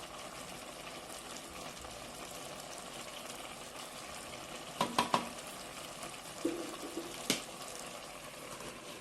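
Pot of cowpeas bubbling on the fire: a steady hiss of boiling liquid, with a quick run of three sharp knocks about five seconds in and one more a couple of seconds later.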